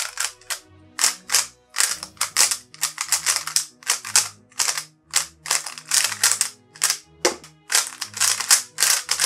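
QiYi MoFangGe Sail 6.0 plastic 3x3 speed cube being turned fast: quick runs of sharp clicking and clacking as the layers snap round, still on factory lube and tight tensions.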